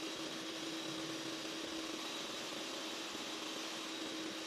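Electric hand mixer running steadily, its beaters whisking thick, foamy marshmallow mixture in a stainless steel bowl as it nears stiff peaks. The motor whine holds one pitch, over an even whirring hiss.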